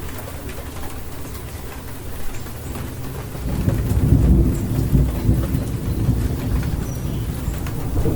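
Steady rain with thunder: a low rolling rumble builds about three and a half seconds in and carries on through the rest.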